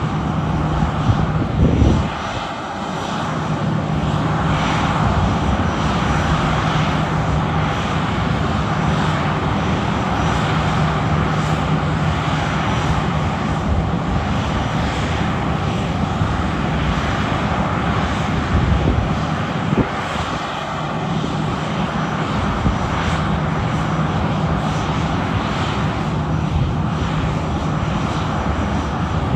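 Boeing 737-800 airliner's CFM56-7B turbofan engines running steadily on the runway before takeoff, a loud, even jet noise with a faint low hum.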